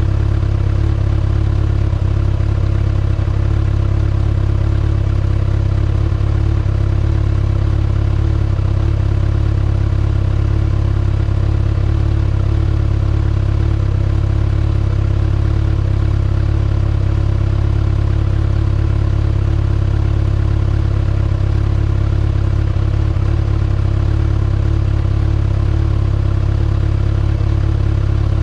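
2019 Kawasaki ZX-6R's inline-four engine idling steadily through its stock exhaust, holding a constant pitch.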